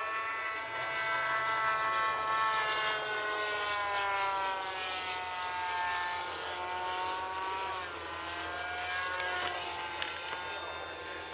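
Radio-controlled model Cessna 182's electric motor and propeller whining steadily on a low pass. The pitch slides down as it goes by.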